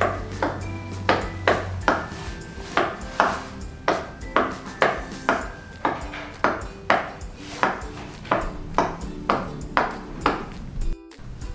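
Background music with a steady, bright tapping beat of about two and a half beats a second, broken by a brief dropout near the end.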